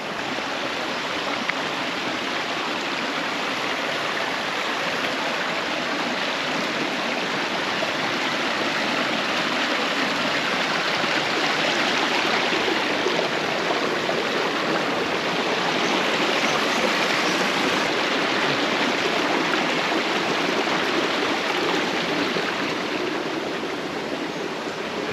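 Rainforest creek water running and splashing over rocks in a steady rush, a little louder in the middle and easing slightly near the end.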